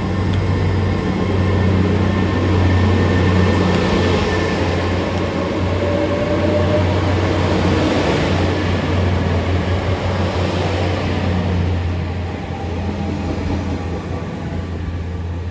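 GWR Class 802 bi-mode train pulling out of the platform on its underfloor diesel engines, with a steady low engine hum under the rolling noise of the carriages going past. The sound eases off near the end as the rear cab passes.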